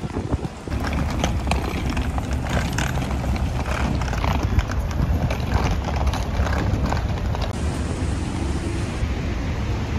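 Footsteps and suitcase wheels clacking over stone paving, a stream of irregular short clicks, with a steady low rumble of wind on the microphone from about a second in.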